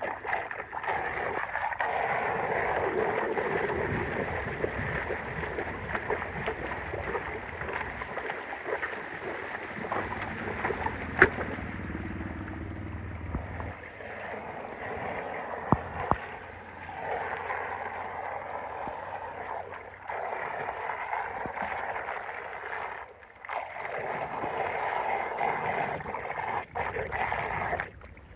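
Water gurgling and rushing as it drains through a cleared blockage, with a couple of sharp knocks.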